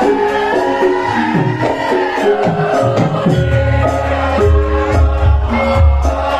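Live Javanese gamelan music accompanying a lengger dance: struck metal keyed notes over a rhythmic beat with a voice singing gliding lines. Deep drum strokes come in strongly about three and a half seconds in.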